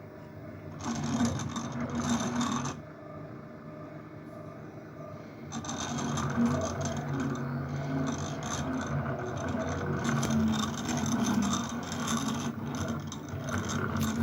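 CNC table's stepper motors driving the gantry in a whirring hum with shifting pitch. It is quieter at the start, rises about a second in, drops back between about 3 and 5.5 seconds, then runs steadily.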